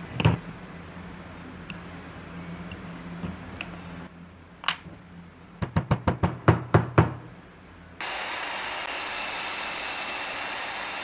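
Hammer tapping a bent threaded-rod L into a recess in a wooden clamp jaw: a single knock at the start, another a few seconds later, then a quick run of about eight blows. About eight seconds in, a bandsaw takes over, running steadily as it cuts a block of wood.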